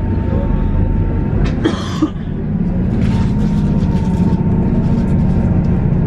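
Passenger train running at speed, heard from inside the carriage: a steady rumble of wheels and running gear, with a thin steady whine that fades out about a second and a half in.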